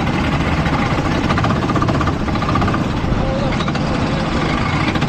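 Go-kart engine running during a race, heard on board the kart: a dense, rapid buzz at a steady level.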